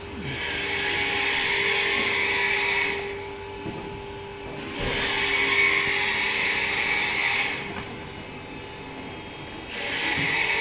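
A power tool running in three bursts of about three seconds each, with short pauses between: a hissing, whirring noise. A faint steady hum runs underneath.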